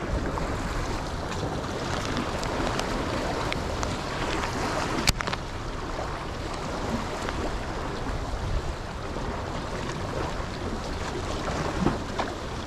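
Small waves washing against the rocks of a jetty, with wind on the microphone. A single sharp click about five seconds in.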